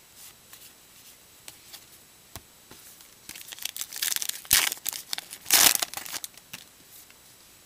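Foil wrapper of a Topps Gypsy Queen baseball card pack crinkling and tearing as it is opened, in a few bursts over about four seconds, the loudest in the middle.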